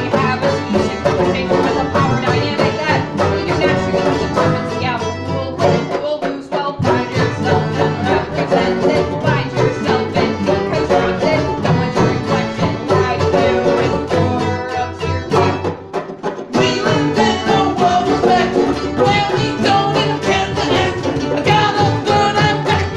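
Live acoustic folk band playing: strummed acoustic guitar with accordion and bass, with singing. The music drops out briefly twice, about six seconds in and again around sixteen seconds, then comes back in louder.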